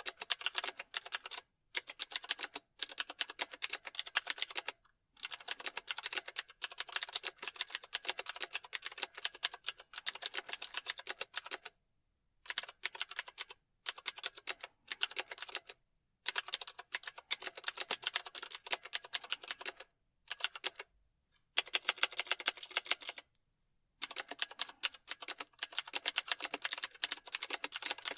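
Computer keyboard being typed on: rapid, dense key clicks in runs of a few seconds, broken now and then by short pauses of about a second.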